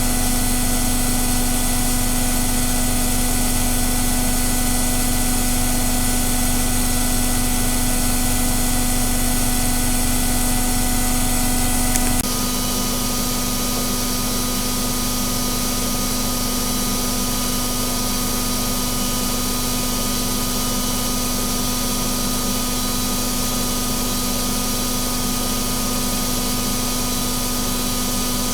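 AEG Öko-Lavamat 85769 front-loading washing machine running at high speed, a steady machine drone with a constant hum tone, typical of the spin cycle late in the programme. About twelve seconds in it drops abruptly to a slightly quieter, steady running sound.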